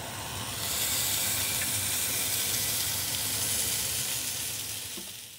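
Food sizzling in a hot pan: a steady hiss that fades out near the end.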